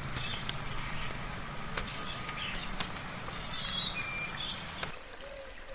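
Birds chirping in short calls, some of them brief clear whistles, over scattered raindrops dripping and pattering. A low steady rumble underneath stops abruptly near the end.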